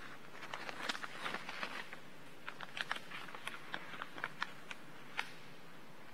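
A brief rustle of paper and cloth as a person gets up from a chair, then irregular light clicks of shoes walking across a stone floor.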